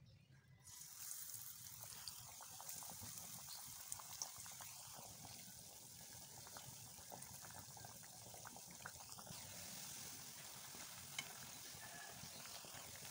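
Breaded potato nuggets deep-frying in hot oil: a steady sizzle with small crackles and pops, starting just under a second in.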